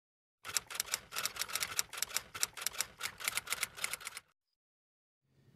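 Typewriter typing sound effect: a rapid, uneven run of key clacks lasting about four seconds, starting and stopping abruptly.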